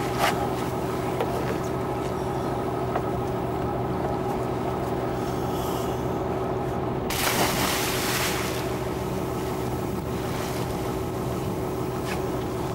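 A boat's engine idling steadily, and about seven seconds in a splash lasting over a second as a scuba diver in full gear jumps off the side into the water.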